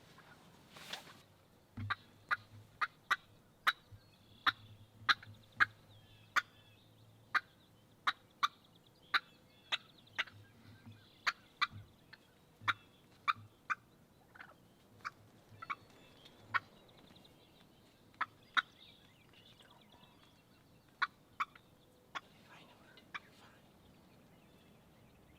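Wild turkeys calling: a long, irregular run of short, sharp clucks, roughly one or two a second, that thin out near the end.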